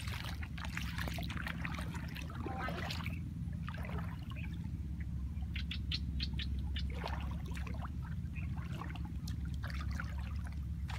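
Feet wading through shallow paddy water, with irregular sloshing and splashing, over a steady low rumble.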